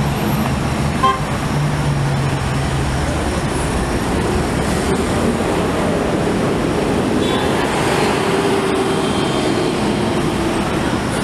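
Steady noise of dense, slow-moving interstate traffic: car and truck engines and tyres, with a brief short tone about a second in.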